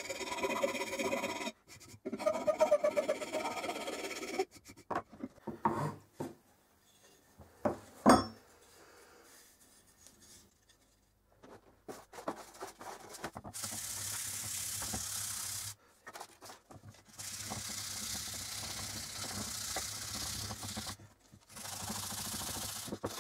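A hand file rasping along a wooden hammer handle, followed by a few knocks and one sharp, loud strike. Later comes a steady hissing rub that stops and starts again twice.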